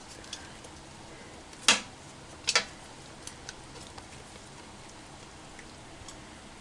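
Wooden tongs knocking against the stainless steel inner pot of an Instant Pot as cooked ribs are lifted out: two sharper clacks about two seconds in, with a few light ticks around them.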